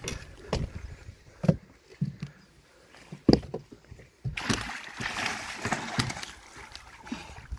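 Northern pike thrashing in a landing net at the boat's side. A few scattered knocks of the net frame against the boat come first, then from about four seconds in a steady splashing of water.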